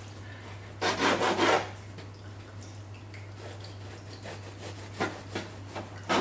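Serrated bread knife sawing through a crusty focaccia roll: a loud rasping cut about a second in, quieter scraping strokes after it, two sharp knocks around five seconds in, and another loud cut starting right at the end.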